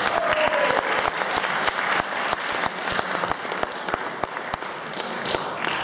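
Audience applauding, a dense run of hand claps that eases off slightly toward the end.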